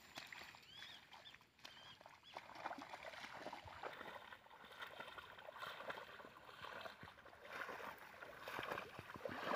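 Footsteps wading through shallow floodwater and grass, with irregular sloshing and splashing of water around the legs.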